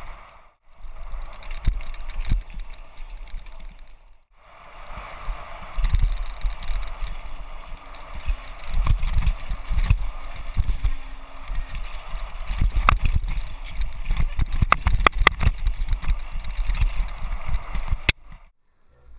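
Mountain bike descending a dirt trail: a steady rush of wind and rumble on the microphone with the bike rattling over bumps, and a run of sharp knocks in the second half. The sound cuts off suddenly shortly before the end.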